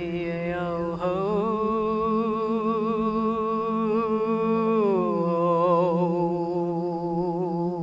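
Meditation music: a voice humming long wordless notes with vibrato over a steady low drone, the held note sliding down about five seconds in.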